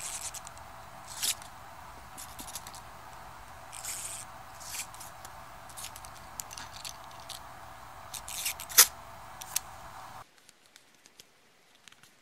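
Plastic Batman action figure being handled and worked: scattered small clicks, scrapes and rustles of its parts, the sharpest click near nine seconds in. A steady background hiss stops abruptly just after ten seconds in.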